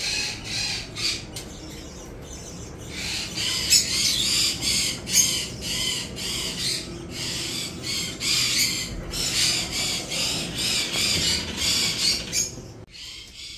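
A flock of caged aviary birds squawking and chattering, with rapid, overlapping high calls, several a second; they stop abruptly about a second before the end.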